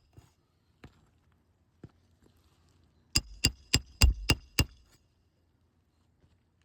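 Roofing hammer striking a roof snake to drive a nail under a lifted asphalt shingle: about six quick, sharp, ringing metal blows a little after three seconds in, with a few light taps before them.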